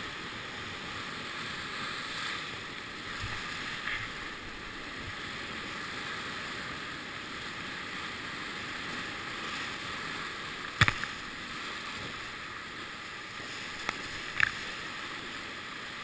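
Whitewater rapids rushing steadily around a raft, with a few sharp knocks about two thirds of the way in and again near the end, the first the loudest.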